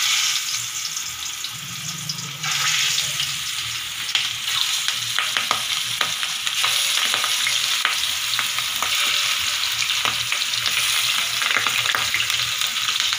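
Salt-and-turmeric-rubbed fish steaks sizzling in hot oil in a frying pan as the pieces are laid in, with many small crackling pops. The sizzle jumps louder about two and a half seconds in.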